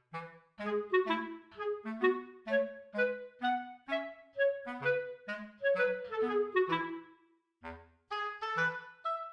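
Background music: a bouncy melody of short, quickly fading notes over a bass line, pausing briefly about seven and a half seconds in before picking up again.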